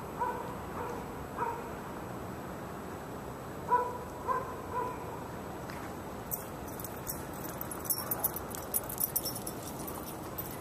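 A dog giving about five short yips in the first half, over steady outdoor background noise. From about the middle on there is a run of sharp, light clicks.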